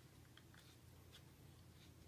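Near silence with a few faint ticks as an Allen wrench turns a screw in a polymer foregrip.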